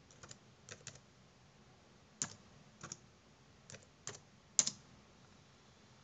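Typing on a computer keyboard: a dozen or so irregular, quiet keystrokes in small clusters, the loudest about four and a half seconds in.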